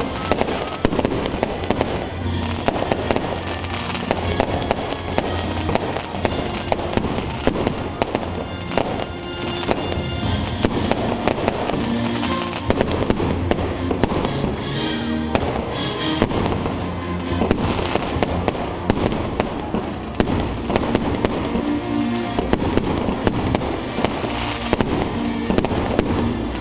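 Aerial fireworks going off in a continuous display, with many sharp bangs and crackles, over music.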